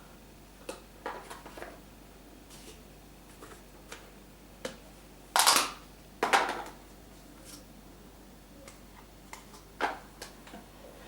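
Handling noises from Play-Doh modelling on a tabletop: scattered light clicks and taps of plastic tools and toys, with two louder half-second scrapes or rustles about midway and a shorter one near the end.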